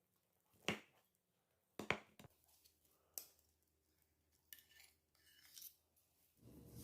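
A few sharp, separate clicks and clinks of kitchen utensils against a dish, then a short, soft scraping.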